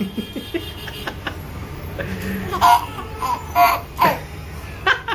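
A baby laughing in short, high-pitched bursts, several coming close together in the second half.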